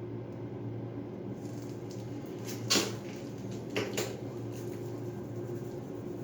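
Steady low hum with three short knocks or scrapes on a hard surface: a louder one about two and a half seconds in and two smaller ones close together around four seconds.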